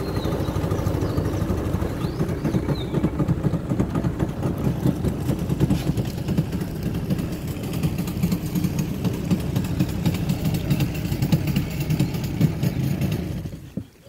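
Speedboat's outboard motor running steadily, then cut off abruptly near the end.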